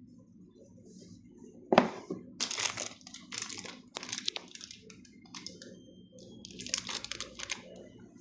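Packaging being crumpled and handled, in irregular crinkling, crackling bursts that start about two seconds in, the first one the loudest.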